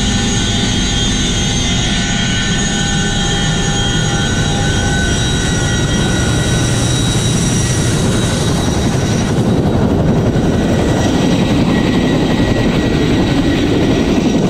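CH-47 Chinook tandem-rotor helicopter running close by: a steady high turbine whine over loud rotor noise. After about nine seconds the whine fades and a rougher rushing noise takes over.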